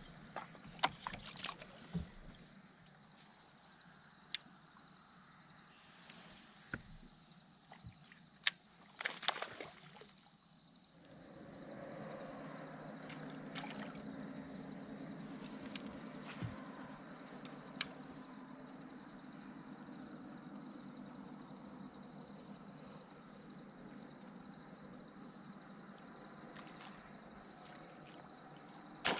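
Faint sounds of fishing from a kayak: a few light clicks and knocks as the rod is cast and handled, small sloshes of water against the hull, then a low steady whir from about eleven seconds in.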